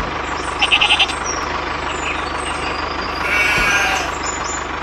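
Tractor engine running with a steady low putter. A quick run of about five high beeps comes just under a second in.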